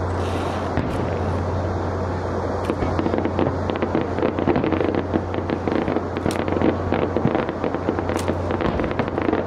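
Fireworks display: a dense wash of crackling and popping from bursting shells, thickening from about three seconds in, with two sharp cracks later on. A steady low hum runs underneath.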